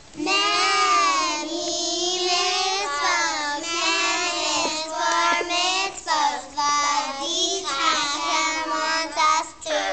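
A group of young girls singing a song together, in phrases with short breaks between them.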